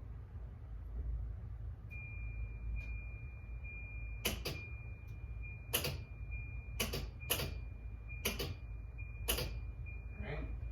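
Hand work on a car's headlight assembly: a string of sharp, irregular clicks and taps, starting about four seconds in. Under them run a low steady hum and a faint high steady tone.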